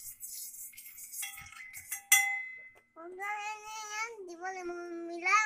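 A spoon knocking and scraping against a small steel bowl while cornflour is shaken onto boiled corn kernels, with a sharp ringing clink of the bowl about two seconds in. From about three seconds a young child's voice holds long drawn-out tones in three stretches.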